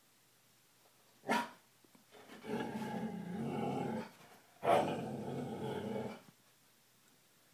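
A Goldendoodle giving a short bark about a second in, then two long growls of about a second and a half each, the second starting with a sharp bark. He is growling at what he takes for a different dog.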